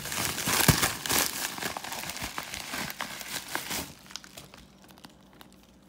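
Paper mailing envelope crinkling and rustling as it is handled and opened, full of sharp crackles for about four seconds before it goes much quieter.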